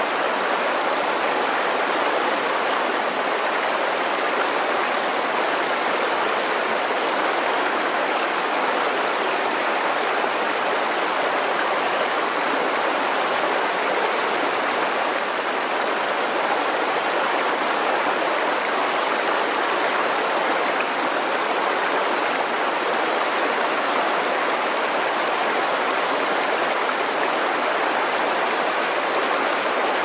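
River water running, a steady, even rush of flowing water with no breaks or single splashes standing out.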